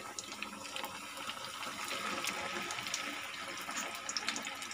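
Vermicelli-coated chicken kababs deep-frying in hot oil: a steady sizzle scattered with small crackles.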